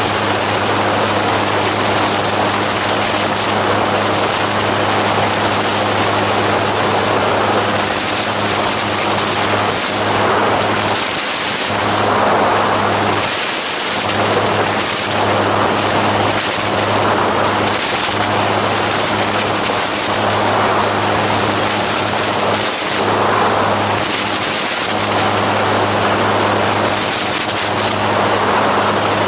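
Gyroplane engine and propeller running steadily in cruise flight, a constant drone under a strong rush of air.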